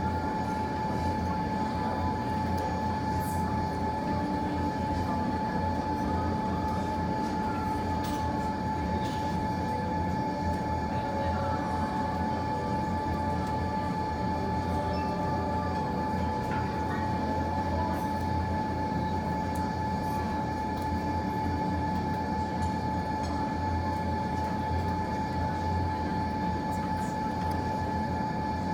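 Steady indoor machine hum, low and even, with a constant high whine running through it and a few faint pops.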